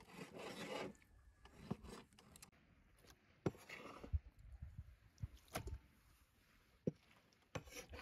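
Quiet food-preparation handling: a rasping scrape in the first second, then half a dozen light, sharp knocks and taps spread over the next several seconds, with softer scraping between them.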